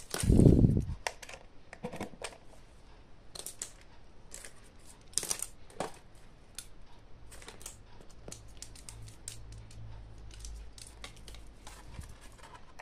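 Control knobs being fitted onto a homemade power supply's front panel: scattered light clicks and taps of handling, with one dull, heavy thump about half a second in.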